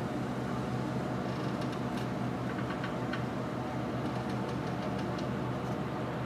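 Steady low mechanical hum, an even drone with no change in pitch, with scattered faint clicks above it.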